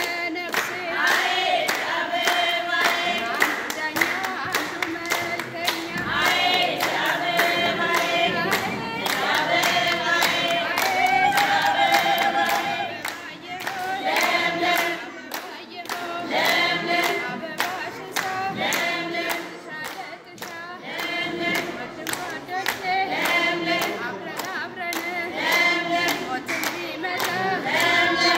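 A group of women singing together, keeping time with steady rhythmic hand-clapping.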